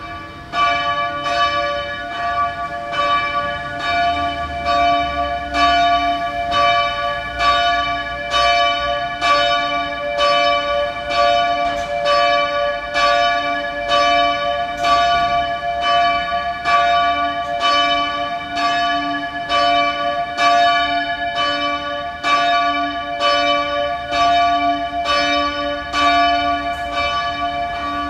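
Bell 4 of the former Christophoruskirche, a single church bell swinging and ringing steadily. It starts about half a second in, then the clapper strikes in an even rhythm a little faster than once a second, each stroke ringing on into the next.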